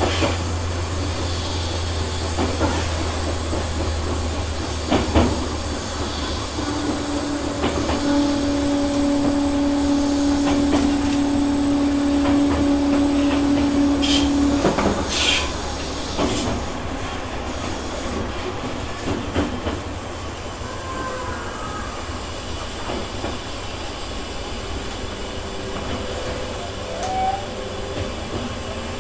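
Interior sound of a Tobu 6050 series electric train near the crew cab as it stands at the end of its run: a steady hum of onboard equipment and air conditioning. A steady tone sets in about 7 s in and stops about halfway through, with a few short hisses of air just after it.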